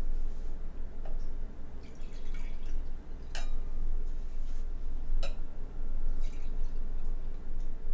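Liquid dripping, a handful of separate drops, the clearest about three and a half and five seconds in, over a steady low hum.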